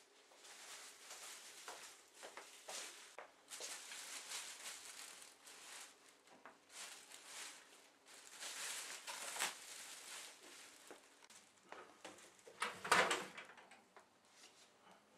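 A plastic bread bag rustling and crinkling as slices are taken out, then near the end a louder metal clatter as the grill pan is pulled out of a cooker's grill compartment.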